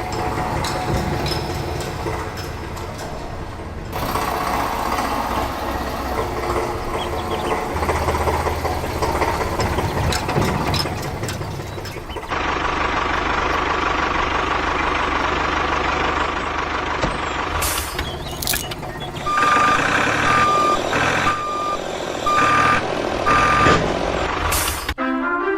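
RC toy trucks and tractors running with motor and engine-type noise across several edited shots, followed by five evenly spaced reversing beeps about a second apart. Music starts near the end.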